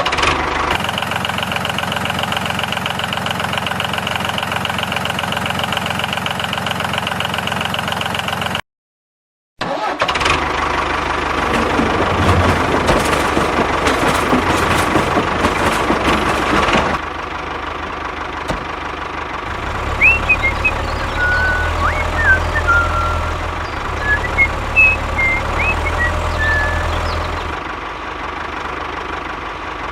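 Vehicle engine running steadily, cut off abruptly for about a second, then running again more noisily. The last third is a quieter low engine hum with a few short high chirps over it.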